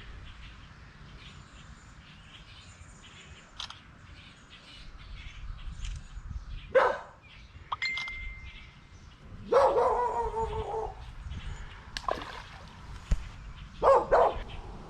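A dog barking now and then, about five barks a couple of seconds apart, one of them drawn out for over a second near the middle.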